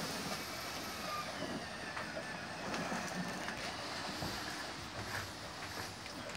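Dense-pack cellulose insulation being blown through a hose and nozzle into a wall cavity: a steady rushing of air and fibre, with faint small ticks.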